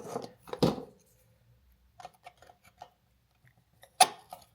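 A screwdriver scraping and clicking on the screw of an electrical outlet's cover plate as it is unscrewed. There are two scrapes at the start, light metallic ticks in the middle and a sharp click about four seconds in.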